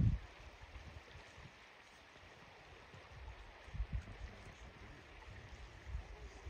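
Steady flow of an open river, a faint even rush of water, with a few short low rumbles of wind or handling on the microphone: one at the start, another about four seconds in and one near the end.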